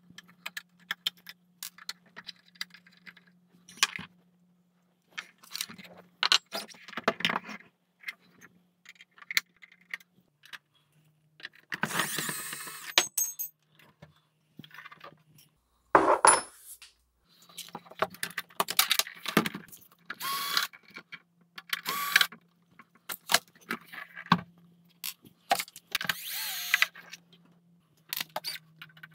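Screws being backed out and the sheet-metal chassis and rack-ear brackets of a rack-mount guitar preamp being handled: irregular metal clicks, clinks and short scrapes, over a faint steady hum.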